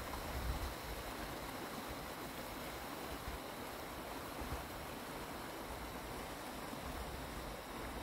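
Wind buffeting the microphone in an uneven low rumble over a steady rushing hiss.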